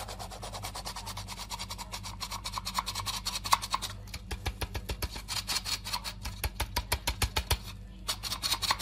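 Handheld mechanical flour sifter being worked over a bowl: a rapid, even clicking-rasping of its mechanism as flour falls through the mesh. It pauses briefly about halfway and stops near the end, after a few last clicks.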